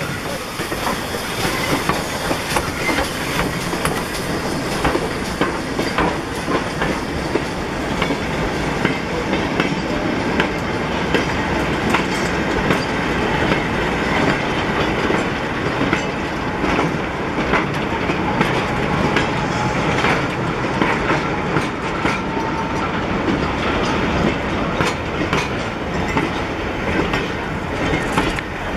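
Steam-hauled goods train of wooden vans rolling past close by, its wheels clattering over the rail joints: a steady rumble and rattle crowded with sharp clicks and knocks.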